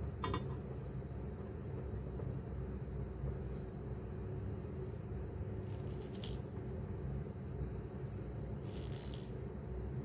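Steady low background rumble, with faint scratchy handling sounds of fingers working small wires, and a brief squeak just after the start.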